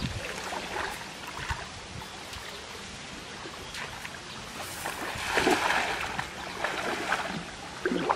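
River water sloshing around the legs of a man wading in the shallows, then a louder rush of splashing about five seconds in as a hand-thrown cast net hits the water.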